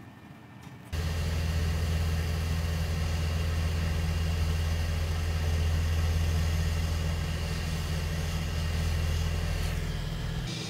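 Hot air rework station blowing steadily with a low hum and hiss, switching on abruptly about a second in and easing off near the end, heating solder balls through a BGA reballing stencil to reflow them.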